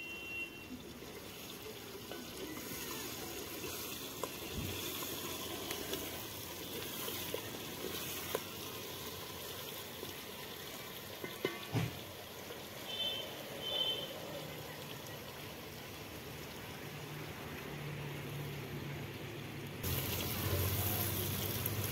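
Turnip slices deep-frying in hot oil in a metal pot: steady sizzling, with a few light knocks of the wooden spoon against the pot as the slices are stirred.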